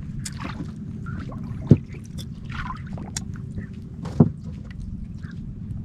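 Small water sounds of the bay lapping against the side of a wooden outrigger canoe, with a steady low rumble underneath and two sharp knocks, one a little under two seconds in and one about four seconds in.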